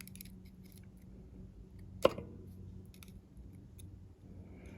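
Faint, scattered small metal clicks from lock pins and tools being handled while a padlock core is taken apart, with one sharper click about two seconds in.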